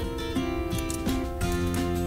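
Background music: plucked acoustic guitar notes about three a second, with a lower steady part coming in about one and a half seconds in.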